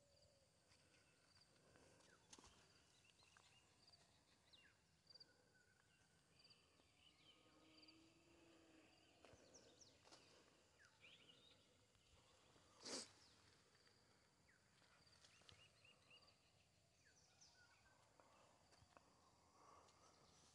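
Near silence: faint open-air field ambience with scattered faint bird chirps and short high calls. One brief sharp noise comes about two-thirds of the way through.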